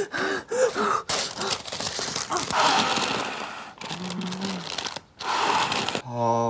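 A man hyperventilating in panic: short gasping whimpers, then hard, rapid breaths in and out of a paper bag, the paper rustling with them. Near the end a steady droning meditation music begins.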